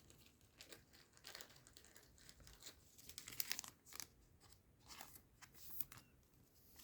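Trading-card booster pack being opened: faint tearing and crinkling of the foil wrapper, with scattered light rustles and clicks as it is handled.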